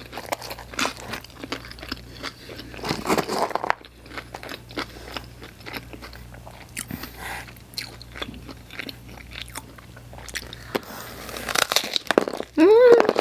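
Close-miked chewing of pizza topped with hot Cheetos: many small crisp crunches and wet mouth sounds. A brief vocal sound near the end.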